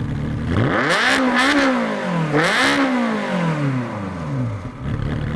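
Ferrari mid-engine V8 idling, then revved twice in quick succession. Each rev climbs sharply, and after the second it falls slowly back to a steady idle.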